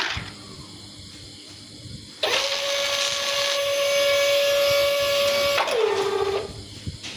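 A small electric motor runs with a steady whine for about three and a half seconds, then slows with falling pitch and stops.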